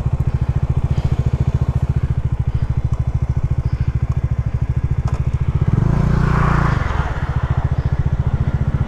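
Bajaj Dominar's single-cylinder engine idling with an even, rapid thump, then revving up about six seconds in as the bike moves off, easing briefly and pulling again near the end.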